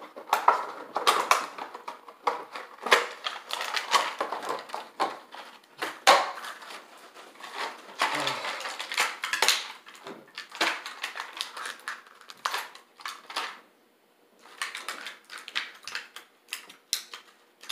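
Packaging being opened by hand: a cardboard box and a plastic tray crinkling and crackling, with many sharp clicks and snaps and a short pause about two-thirds of the way through.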